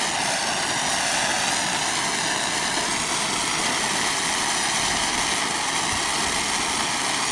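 Propane torch burning with a steady hiss while it heats a crimped ground-wire connector so that solder melts and flows into it.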